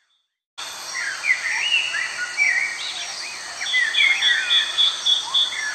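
Several small birds chirping and calling in short rising and falling whistles, starting abruptly about half a second in. In the second half one bird gives a rapid, even series of high notes.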